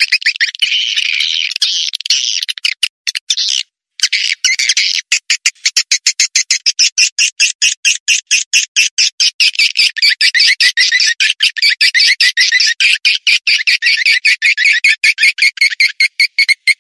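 Swiftlet lure-call recording: dense, rapid, high-pitched chattering of swiftlet chirps, with a brief break about four seconds in. It is the calling sound played from swiftlet houses to draw the birds in to nest.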